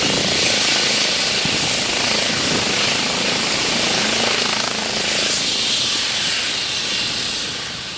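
Eurocopter EC135 twin-turbine helicopter running: a steady high turbine whine over the broad rush of the rotor, easing off slightly near the end.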